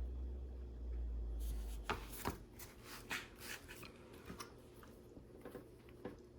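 Hands handling plastic LEGO pieces: a low rumble of handling for the first two seconds, two sharp clicks about two seconds in, then light clicking and rustling of bricks that thins out.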